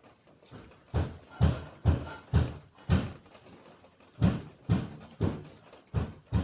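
A run of heavy thumps, about two a second, starting about a second in, with a short pause in the middle.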